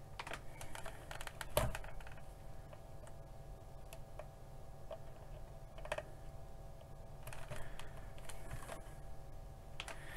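Irregular plastic clicks and taps from handling a PowerFix KH3322 handheld multimeter and its test leads, with its buttons and range switch being worked: a flurry of clicks early, the loudest about a second and a half in, one more near the middle and another run near the end. Under them runs a steady hum from the bench equipment.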